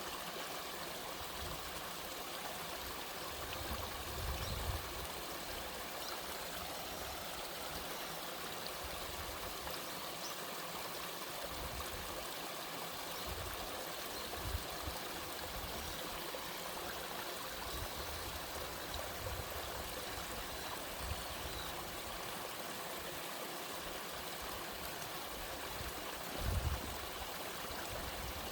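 Mountain stream water running steadily down a three-tiered sliding waterfall over rock, an even rushing splash. A few brief low thumps rise above it, about four seconds in and near the end.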